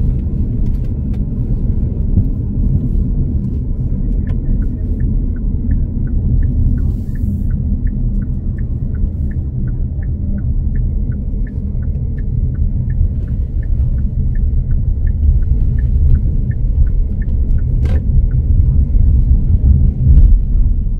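Steady low rumble of a moving road vehicle, its engine and tyres on the road. From about four seconds in, an even light ticking runs at about two ticks a second, and near the end there is a single sharp click.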